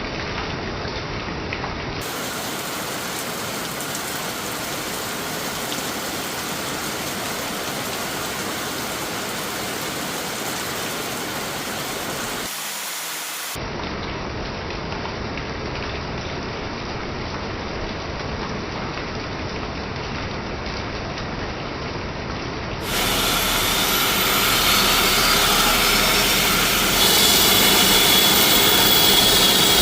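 Steady hiss of rain. About two-thirds of the way through, a helicopter's turbine comes in louder, with a faint rising whine as it powers up.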